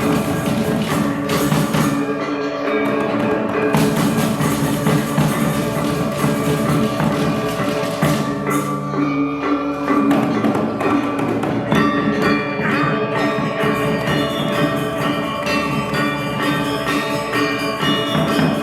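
Balinese gamelan ensemble playing: bronze metallophones ringing in a dense, busy texture over drums. About eleven seconds in, the low, full part falls away and clear high ringing notes come to the front.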